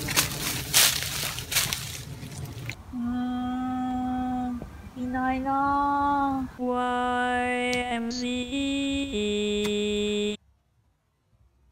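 Rustling and crunching through leafy bushes, then a short melodic jingle of long held notes that steps through several pitches and cuts off suddenly.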